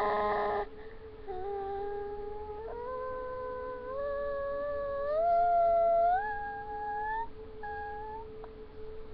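A woman's voice held open-mouthed in long, wordless, howl-like notes that step higher in pitch several times before stopping near the end, over a steady unchanging tone.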